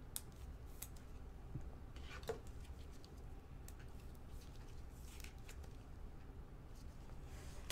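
Gloved hands sliding a trading card into a plastic sleeve and rigid top-loader: faint rustling and scattered light plastic clicks, with one sharp click near the end.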